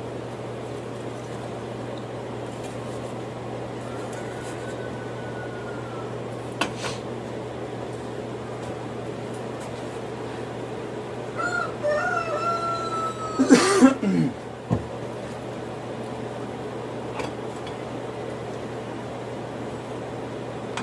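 Steady low mechanical hum. A single click comes about a third of the way in, and past the middle a short run of wavering pitched sounds ends in one loud sharp noise.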